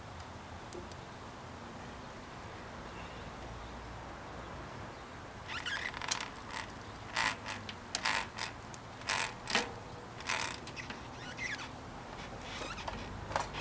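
Bicycle chain clinking and rattling in a run of short, irregular bursts through the Shimano Deore rear derailleur and cassette as it is fitted. The bursts begin about halfway in after a quiet stretch and stop shortly before the end.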